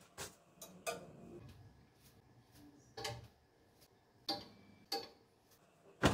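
Plastic clothes hangers clicking against a clothes rail as garments are hung on it: about six short, sharp clicks at irregular intervals, the loudest near the end.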